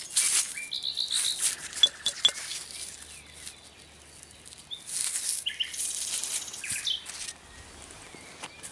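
Gloved hands rustling and scraping in dry soil and debris, with a couple of sharp clicks about two seconds in, while small songbirds chirp in short high notes in the background.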